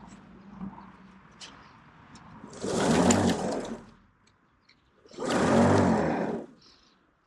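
Cordless battery lawn mower's motor starting twice, each run lasting just over a second before it cuts out: the batteries are flat.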